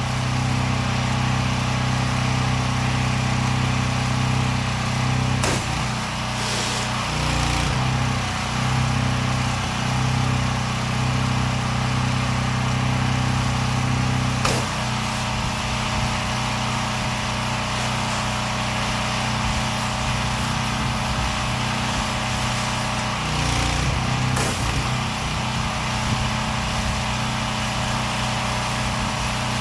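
Gas-engine pressure washer running steadily. Its pitch shifts briefly twice, and there is a hiss and a few sharp clicks over the engine note.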